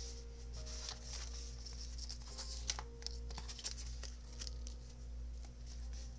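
Paper pages of a handmade junk journal being turned and handled: light rustling with scattered crisp crackles. Faint music with held notes plays underneath.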